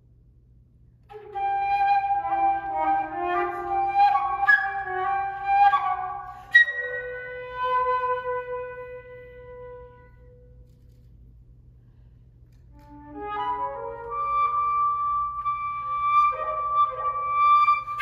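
Solo flute playing. A run of quick notes ends in held tones that fade out, then after a short pause a rising figure settles into a long held note.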